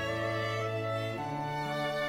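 Slow background music led by bowed strings, with sustained notes and a change of chord about a second in.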